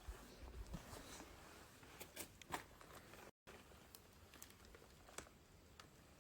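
Near silence with faint, scattered clicks and crunches, a few per second at most; the sound cuts out completely for a moment about three and a half seconds in.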